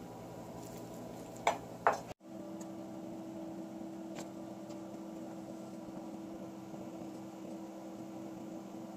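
A kitchen knife knocking twice against a wooden cutting board, about a second and a half in, while raw pork is sliced. After that there is only a faint steady hum.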